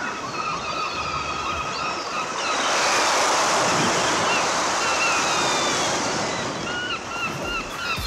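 A rushing, wind-like noise swells up about two and a half seconds in and holds for about four seconds, with short high chirping tones around it.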